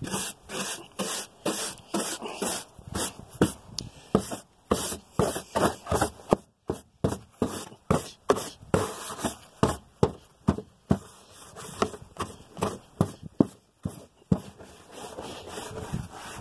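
Soft-to-medium bristle detailing brush scrubbing a car's interior in quick back-and-forth strokes, about two a second, loosening embedded dirt without a vacuum.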